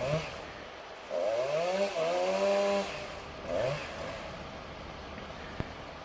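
Chainsaw revving in bursts: a short double rev at the start, then a long rev about a second in that climbs in pitch and holds for nearly two seconds, then a brief rev near four seconds. A single sharp click comes near the end.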